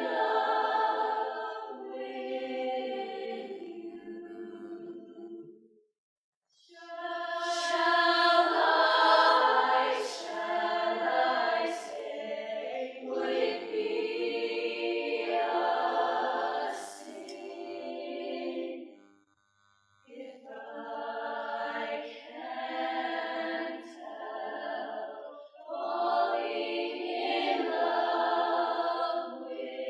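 All-female choir singing a cappella in sustained chords of close harmony. The singing breaks off for two short pauses, about six seconds in and again near twenty seconds.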